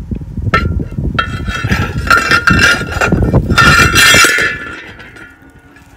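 Steel disc blade of an International Harvester 480 disc harrow clanking and ringing as it is worked onto the square gang shaft, metal grinding against metal. Several knocks each set the blade ringing, and the ringing fades out near the end.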